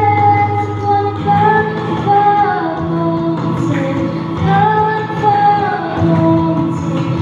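A young woman singing a slow song with long held notes over instrumental accompaniment with a steady, sustained bass.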